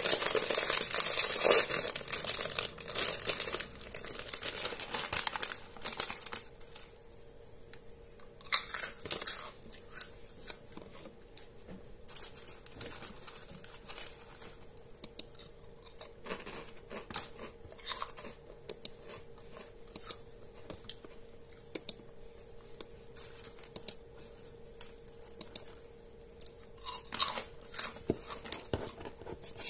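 A wrapper being torn open and crinkled for the first several seconds, then scattered mouse clicks and laptop keyboard taps. A faint steady hum runs underneath.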